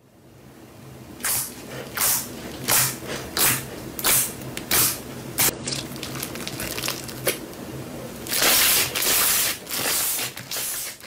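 Clear green slime being folded and pressed by hand. It gives a crisp squelching pop about every two-thirds of a second, then a longer run of loud, crackling squelches as it is kneaded near the end.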